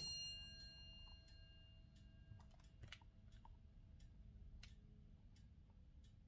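Near silence: room tone with a faint click and a brief metallic-sounding ring that dies away over a couple of seconds at the start, then a few faint scattered clicks.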